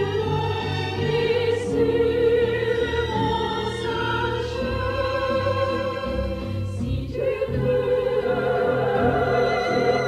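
Orchestral soundtrack music with long held, wavering notes over a sustained bass.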